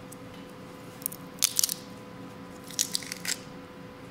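Garlic cloves crushed in a handheld metal garlic press over a bowl of melted butter: two short spells of crackly squishing, about a second in and again near the three-second mark.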